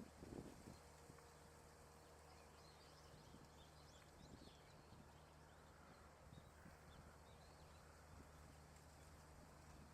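Near silence: a couple of soft thumps at the very start, then faint, distant chirps of small birds over a steady low hum.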